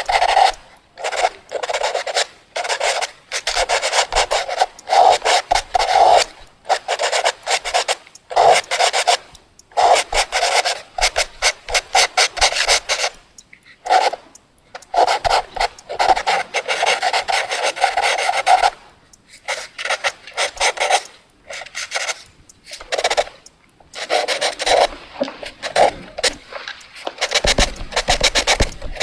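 Fast drawing on paper: quick scratchy strokes of a drawing tool, in bursts of a second or two with short pauses between them.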